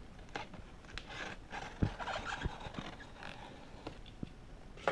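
Fingernails scratching and picking at packing tape on a cardboard box, with scattered small clicks and soft scrapes as the tape edge is worked loose.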